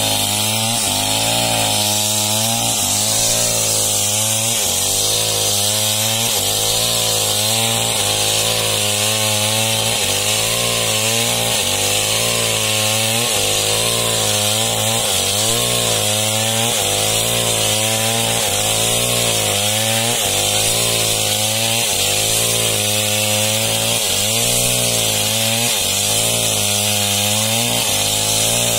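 Small chainsaw with a long bar running at full throttle while rip-cutting lengthwise along a large log. The engine note sags and recovers about once a second as the chain loads up in the wood.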